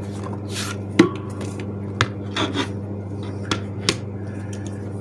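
An album and its packaging being handled: brief scraping rubs and a few sharp taps and clicks, over a steady low hum.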